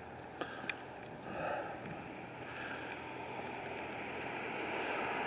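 Steady outdoor rushing noise, growing slightly louder toward the end, with two faint clicks about half a second in.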